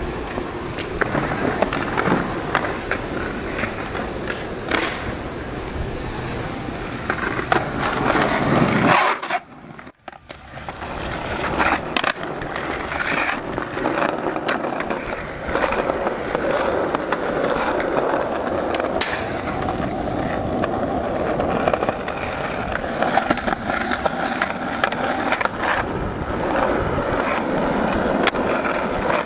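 Skateboard wheels rolling on asphalt, with sharp clacks of the board popping and landing during tricks. The sound briefly drops away about nine seconds in.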